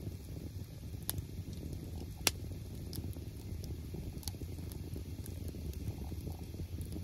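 Split-log wood campfire burning: a steady low rumble of flames with a few sharp crackles and pops from the burning wood, the loudest about two seconds in.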